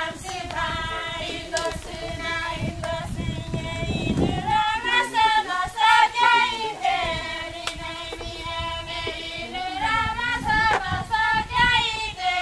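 Women and children singing a chant together in high voices, holding notes that rise and fall.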